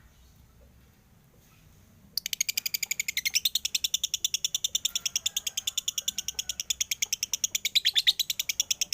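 Male lovebird chattering in a long, unbroken run of shrill chirps, about ten a second, starting about two seconds in. This is the behaviour lovebird keepers read as a male heading toward 'konslet', an over-excited state.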